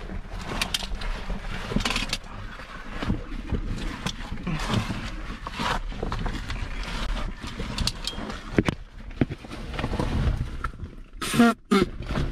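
Caver crawling through a tight rock squeeze: oversuit and gear scraping and rustling against the rock, with effortful breathing and grunts. A short, louder grunt comes near the end.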